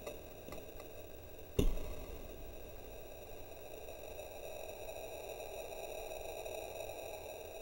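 One sharp thud about a second and a half in, typical of an arrow striking a 3D foam bear target downrange, over faint steady tones.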